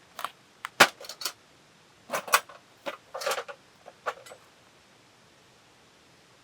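A quick, irregular run of sharp clicks and light clinks of hard objects being handled, stopping after about four seconds.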